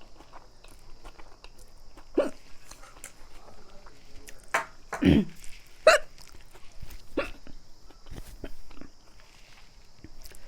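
A woman hiccuping, about five short, sudden hiccups a second or so apart, with faint clicking eating sounds between them. The hiccups come on while she eats food heavy with hot chili.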